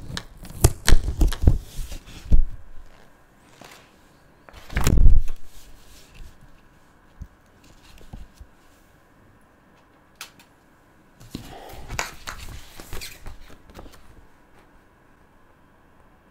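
Hands handling a paper sheet and colouring tools on a tabletop: a run of clicks and taps, then a single louder rub or thump about five seconds in, and more rustling and taps a few seconds before the end.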